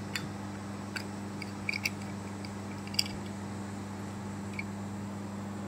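A steady low hum with a handful of light clicks and taps, the sharpest about three seconds in.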